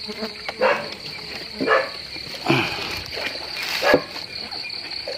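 Night insect chorus, a fast, evenly pulsing high trill of crickets, with a louder animal call about once a second, four times.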